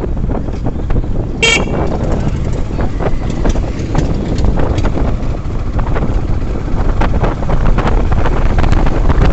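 Wind rushing over the microphone with road and traffic noise, cut by one short horn toot about a second and a half in.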